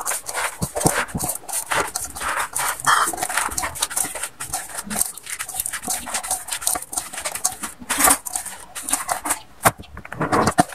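Hands squeezing and kneading chopped banana-trunk pith (ubod ng saging) in a stainless steel bowl: a dense, irregular wet crackling and squishing of the shreds.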